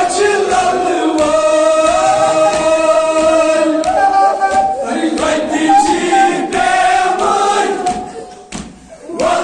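A group of voices chanting a Kashmiri noha, a Shia mourning lament, in unison with long held lines, with regular faint thumps beneath. The singing drops away briefly about a second before the end, then comes back.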